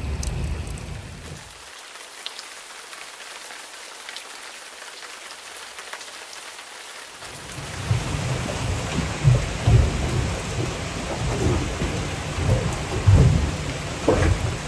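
Steady rain falling on the harbour water and the boat, with gusts of wind buffeting the microphone in irregular low rumbles at the start and again from about halfway through.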